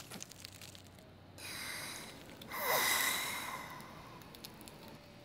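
A breath drawn in, then a long sigh out from about two and a half seconds in, fading away over a second or so: a sigh of unwinding and relief.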